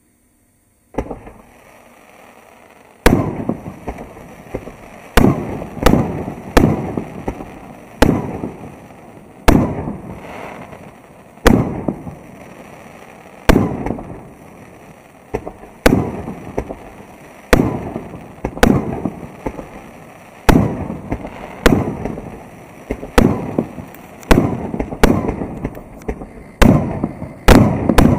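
A 3-inch, 88-shot firework cake firing: shells launching and bursting overhead as a series of sharp bangs, about one every second or so, each trailing off, coming faster toward the end.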